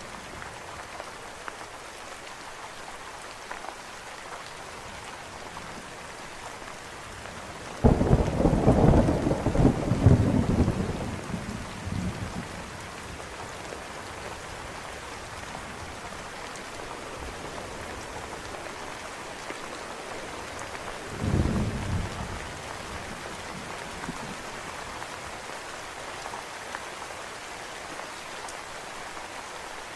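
Steady rain with two claps of thunder: a loud, sudden crack and rumble about eight seconds in that rolls on for several seconds, and a shorter, weaker rumble about two-thirds of the way through.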